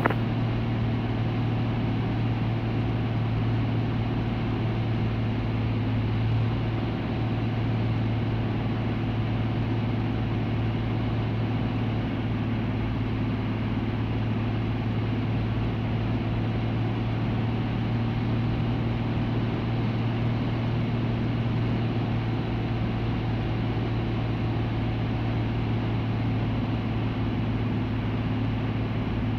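Van's RV-7's UL Power engine and propeller in flight, heard inside the cockpit as a steady, unchanging drone with a strong low hum and a haze of airflow noise.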